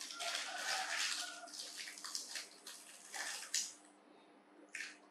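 A plastic snack packet crinkling and rustling in hands in short, irregular bursts.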